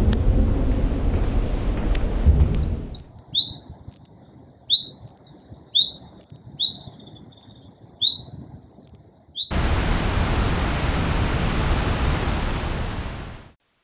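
A low rumbling noise for the first few seconds, then a bird chirping about a dozen short, quick notes with silence between them. About nine and a half seconds in, a steady rushing of river water starts and fades out near the end.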